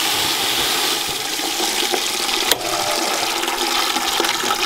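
Water rushing from a yard hydrant's spout into a plastic bucket: a steady splashing, with one brief click about halfway through.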